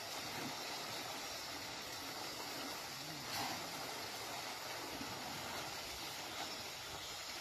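Steady hiss of water around a herd of wild Asian elephants wading in a pond, with a brief swell about three seconds in.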